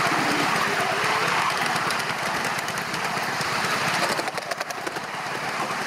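A 5-inch gauge live-steam model of an LMS Stanier Black Five 4-6-0 running under steam, with a steady hiss of steam and rapid exhaust beats. A short run of clicks from the wheels on the track comes about four seconds in.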